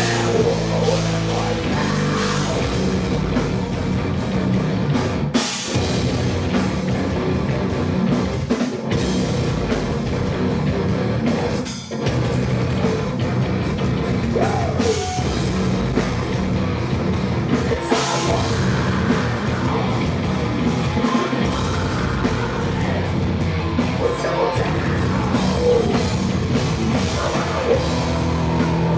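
Live heavy metal band playing loud, with electric guitars, drum kit and vocals.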